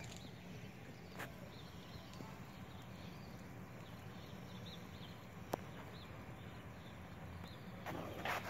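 Quiet outdoor ambience: a low steady rumble with a few faint, short high chirps in the middle, sharp clicks about a second in and again midway, and a brief crackling rustle near the end.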